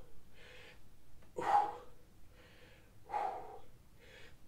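A man breathing hard while lifting dumbbells: quieter inhales alternating with two sharper, louder exhales, paced with the reps of upright rows.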